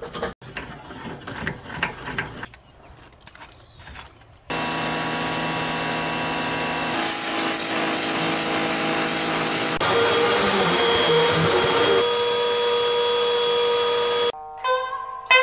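Brief clatter and rustling of a boat cover and strap being handled, then a steady machine run from about four and a half seconds in: a pressure washer spraying the boat hull and a shop vacuum running on the carpeted deck, cut together. Plucked-string music starts near the end.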